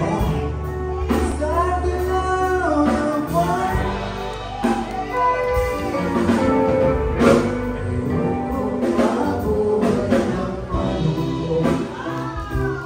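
Live band playing a song: a singer's voice over electric guitar, bass, keyboard and a drum kit.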